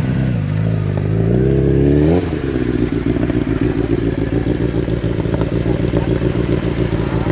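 Honda CBR1000RR's inline-four engine revved: the pitch climbs for about two seconds, then falls back sharply and the engine settles into steady, fast-pulsing running.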